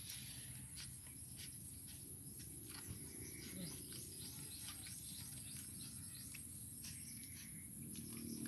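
Faint outdoor insect drone: a steady high-pitched hum with many short scattered chirps over it.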